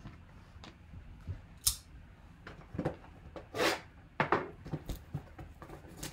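Plastic shrink wrap on a sealed trading-card box being cut with a folding blade and torn away by hand: a series of short, irregular scratching rips, the longest about three and a half seconds in.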